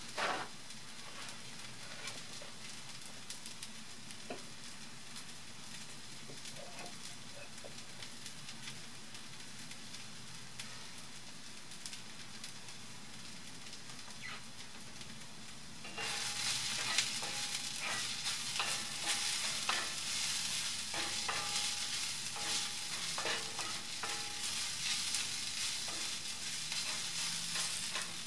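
Sliced purple onions sizzling steadily in hot coconut oil in a pan while left to rest. About halfway through, a spatula starts stirring them, and the sizzle turns louder, with quick scrapes and clicks against the pan.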